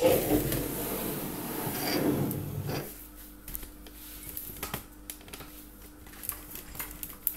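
Rustling handling noise for about three seconds, then light scattered clicks and taps over a faint steady hum.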